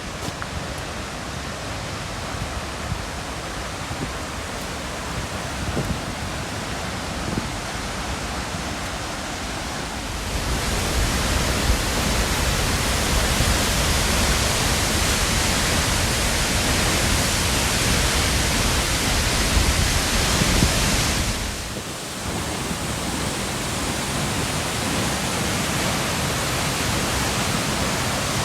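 Waterfall's steady rush of falling water, growing louder about a third of the way in and easing back somewhat about two-thirds of the way through.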